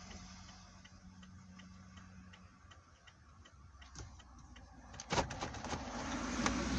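A car's turn-signal or hazard flasher ticking evenly, a little under three times a second, then a loud clunk and rustling as the car door is opened a little after five seconds in.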